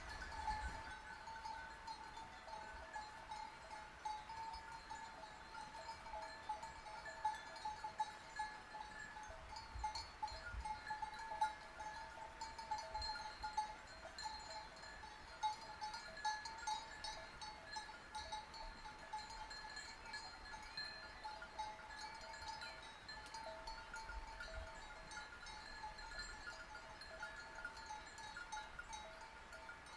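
Sheep bells clanking continuously, several ringing at once in an uneven, overlapping jangle.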